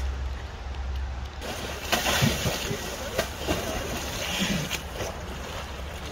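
Brown bear swimming and splashing through lake water close to the microphone, with irregular splashes from about a second and a half in. Low wind rumble on the microphone at the start.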